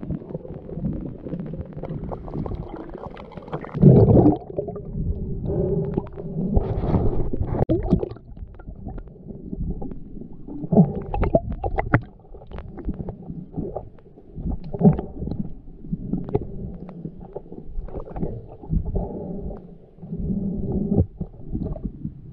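Muffled underwater noise picked up by a camera while its wearer swims: low rumbling and gurgling water with scattered clicks and knocks, and one louder surge about four seconds in.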